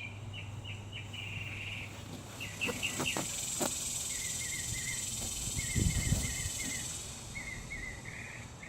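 A small bird chirping over and over in short runs of quick notes, with a steady high insect-like hiss through the middle. A few light clicks and soft knocks come between.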